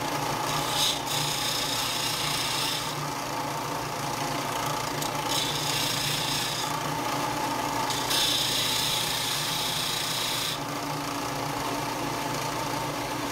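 Bench disc sander running and grinding a die-cast metal truck cab: a rasping hiss in three spells, each as the piece is pressed to the disc, over the motor's steady hum.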